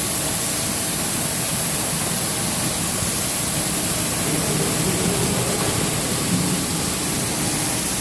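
Automatic carpet washing machine running, its rotating brush discs turning: a steady rushing noise with a faint low hum.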